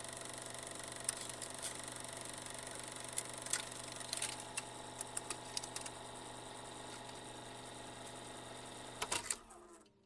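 Faint steady hum of several fixed tones, dotted with scattered clicks and crackles. It cuts off abruptly about nine seconds in, right after a short cluster of clicks.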